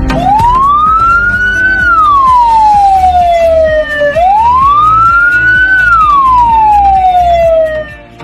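Ambulance siren in wail mode: one loud tone sweeps slowly up and then down, twice, each rise taking under two seconds and each fall a little over two.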